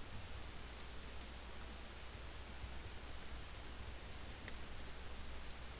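Faint clicks of computer keyboard keys being typed, scattered, with a quick cluster of clicks a little over four seconds in, over a steady low hum and hiss from the microphone.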